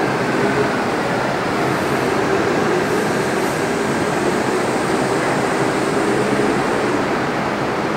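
Monorail train of the M fleet (Bombardier Innovia Monorail 300) running past the station platform: a steady rush of its rubber tyres on the guideway, with a faint hum.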